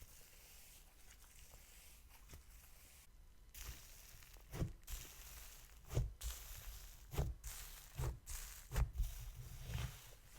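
Wet, sizzly slime being squished and poked by hand. After a faint hiss, a series of soft squelches and sharp pops with crackle sets in about four seconds in, roughly one a second, as trapped air bursts through the slime.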